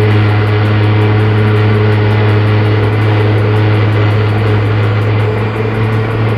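Vitamix blender running at a steady high speed, a loud, even motor hum and whir as it churns a full jar of whole fruit, leafy greens and coconut water into a thick green smoothie.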